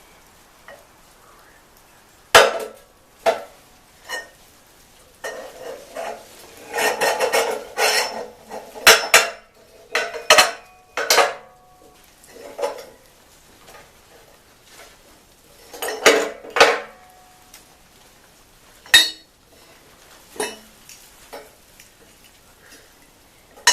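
Steel parts of a sawmill rocker tube assembly being handled and fitted together. Metal pieces clank against each other in a dozen or so sharp knocks, with a few seconds of rattling and scraping early on.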